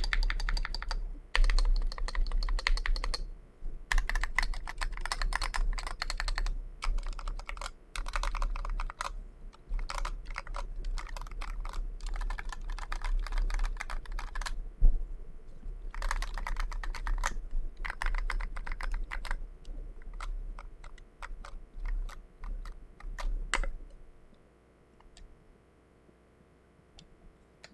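Typing on a mechanical keyboard, a KBDfans Pebble with JWK FFF switches and SA-profile keycaps: fast runs of keystrokes broken by short pauses. It stops about 24 seconds in, and near silence follows.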